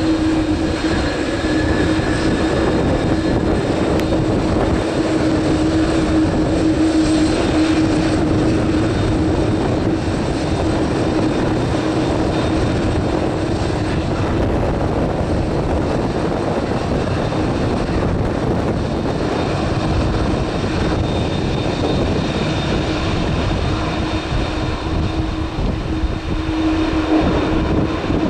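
Airbus A300-600ST Beluga's two General Electric CF6-80C2 turbofan engines running at taxi power as the aircraft rolls past after landing. The engine noise is a steady whine with a low hum that weakens midway and grows again near the end as the jet turns away with its engines facing the camera.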